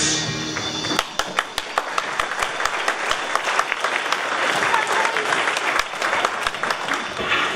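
Audience applauding, many hands clapping with some voices mixed in, starting about a second in as the music fades out.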